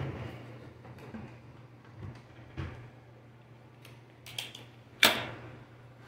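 A few light clicks and knocks, with one sharper, louder knock about five seconds in, over a steady low hum.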